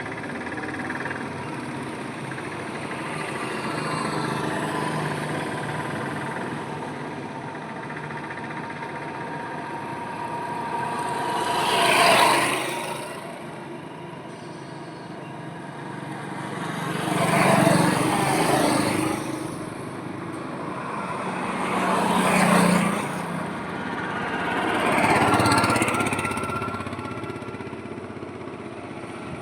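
Highway traffic: a steady hum of vehicles, with four vehicles passing close by, each swelling up and fading away, the first about twelve seconds in and the other three over the following fourteen seconds, engine tones audible in the passes.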